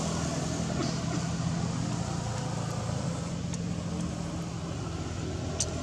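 A steady low engine hum, with a few faint short clicks.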